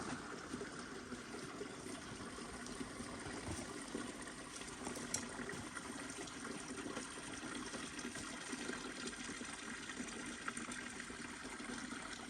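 Steady, even rushing outdoor background noise with a few faint ticks.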